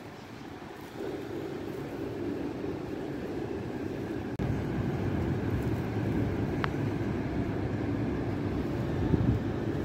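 A steady low rumble of outdoor city background noise, growing louder about a second in and again about four and a half seconds in, with one short click about six and a half seconds in.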